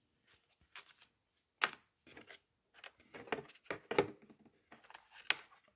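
Handling noise from a hard plastic tool case and a paper instruction sheet: a string of irregular clicks, taps and paper rustles, with sharper knocks about one and a half seconds in, near the middle and near the end.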